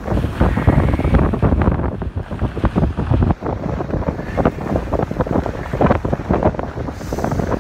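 Wind buffeting the microphone, a loud, uneven low rumble.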